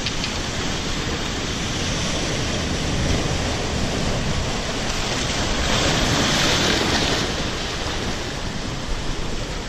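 Sea surf surging and foaming through a narrow channel between shoreline rocks, a steady wash that swells to its loudest a little past the middle.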